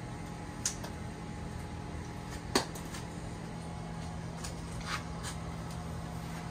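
Three short sharp clicks or knocks, the loudest about two and a half seconds in, over a steady low hum.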